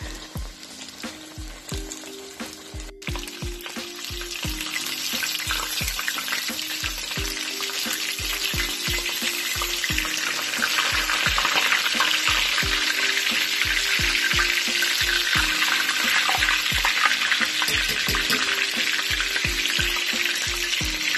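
Breaded chicken patties frying in hot oil in a cast-iron skillet, a dense crackling sizzle that grows louder over the first several seconds and then holds steady. Background music with a steady beat plays underneath.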